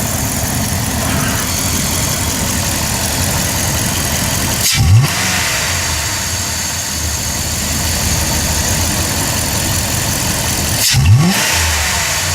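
1996 Dodge Ram Van 2500 engine idling, revved twice by a quick stab of the gas pedal, about five seconds in and again near the end, each time rising sharply and dropping back to idle. The engine has a random misfire, and the pedal is being pumped to see whether fuel pressure comes up.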